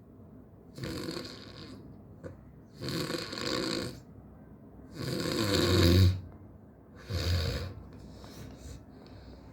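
Heavy snoring: four long snores about two seconds apart, the third the loudest and deepest, with a rattling low rumble.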